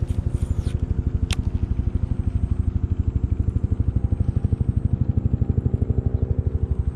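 A small engine running steadily, with an even, rapid chugging pulse and a steady low hum. A single sharp click comes just over a second in.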